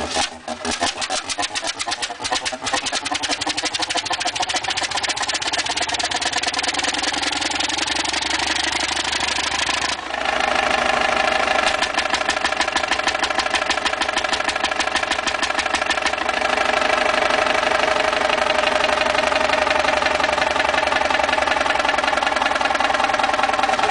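1936 Fairbanks Morse Model 32D stationary diesel engine running with rapid, even firing beats. It speeds up over the first ten seconds, then about ten seconds in it shifts abruptly to a louder, steady run.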